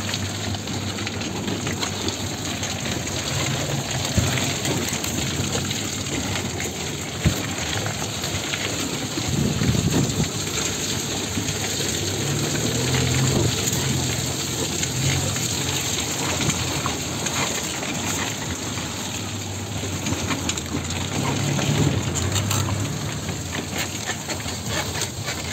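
Vehicle driving along a muddy, rutted dirt track, heard from inside the cab: a steady rushing noise over a low engine drone that swells and fades, with a sharp knock about four seconds in and another about seven seconds in.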